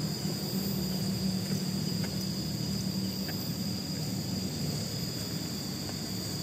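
Insects chirring steadily in high, unbroken tones, over a low steady hum.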